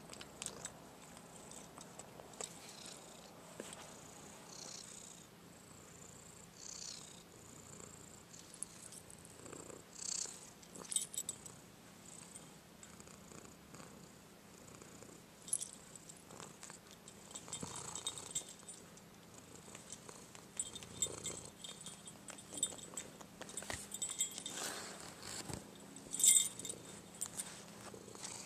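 Domestic cat purring steadily while being petted, with occasional short light jingles from the small bell on its collar.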